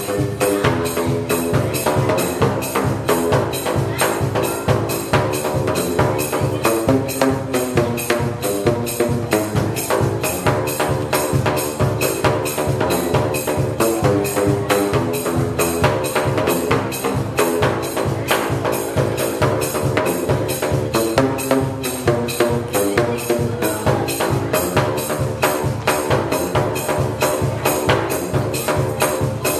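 A home-made drain-pipe instrument: plastic pipes of different lengths struck on their open ends with flip-flops, each slap sounding a pitched note. A fast, unbroken run of strikes plays a melody throughout.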